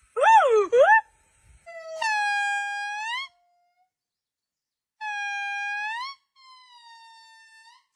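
Monkey calling: a quick warbling trill, then two long, high, steady calls that swing upward at the end, and a fainter falling call after them.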